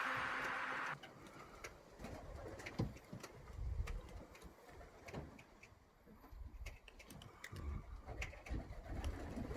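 Background music cuts off about a second in, then racing pigeons cooing, with scattered sharp clicks among them.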